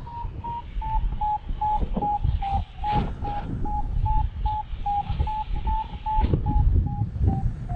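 Paraglider variometer beeping steadily, short even beeps about two and a half a second with the pitch wavering slightly: the climb tone of a glider rising in a thermal. Wind rushes on the microphone underneath.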